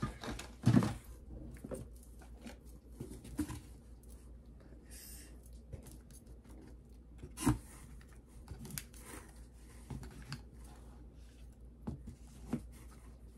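Plastic cream tubes and lotion bottles being handled and set down in a plastic bin, with scattered light clicks and knocks and some rustling. The loudest knocks come about a second in and about seven and a half seconds in.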